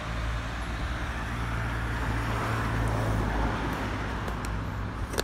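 Road vehicle engine running close by, a steady low hum with road noise that grows louder towards the middle and then eases off.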